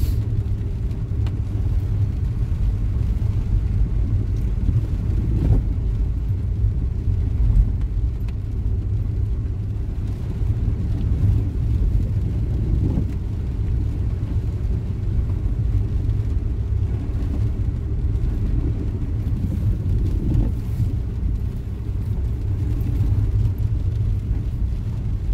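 Car driving slowly on a wet road, heard from inside the cabin: a steady low rumble of engine and tyres.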